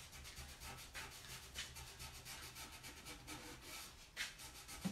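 Rag rubbing glaze onto a chalk-painted box: faint, quick, irregular scrubbing strokes, with one louder stroke about four seconds in.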